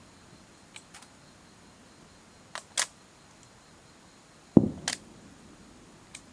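A firework shell bursting in a single boom about four and a half seconds in, among several short, sharp clicks spread through the stretch.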